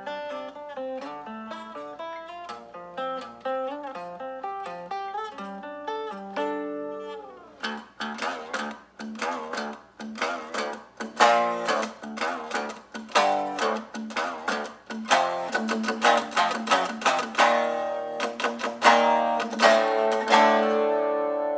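Semi-hollow electric guitar played solo: picked single notes for the first several seconds, a falling pitch glide about seven seconds in, then louder picked chords with sharp attacks, ending on a chord left ringing.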